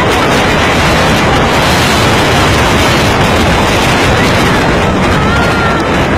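Loud, steady rushing roar of wind buffeting the microphone, mixed with the noise of a rough sea.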